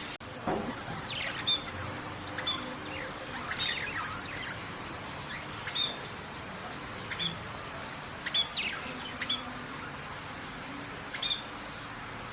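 Birds chirping: short high chirps and quick downward-sweeping notes, repeated irregularly about once a second, over a steady hiss.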